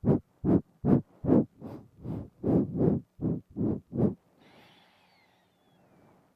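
Quick puffs of breath through the nose blown right against a binaural microphone, about eleven short breaths in four seconds, then a pause of about two seconds.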